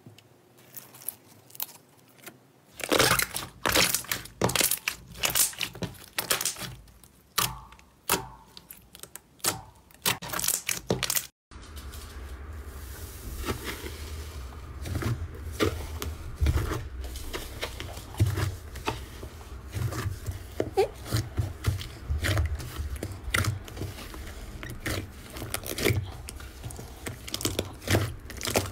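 Slime pressed and squished by hand, giving sharp sticky crackling pops. After a brief break near the middle, a denser run of softer squishing crackles follows.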